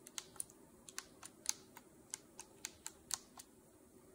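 The plastic express keys on a Huion H640P pen tablet being pressed by a thumb, giving a quick, irregular run of small clicks that stops near the end.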